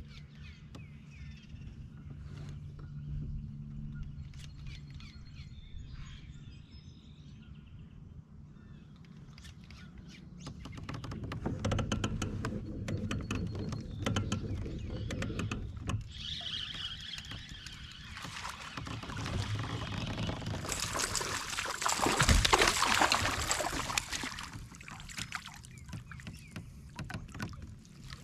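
Water sloshing and splashing around a fishing kayak, starting faint with a few bird calls in the first seconds, then growing into loud rushing splashes that peak about three quarters of the way through.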